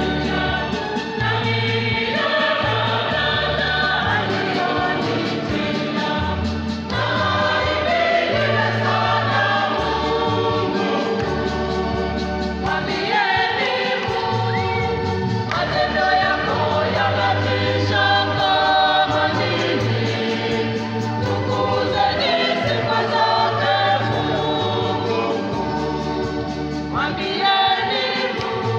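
Church choir singing a Swahili gospel song in full voice, many voices together over a low bass line that moves in held steps.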